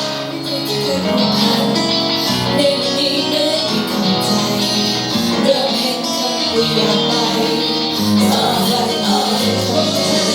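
A song playing, with singing over guitar and a steady bass line.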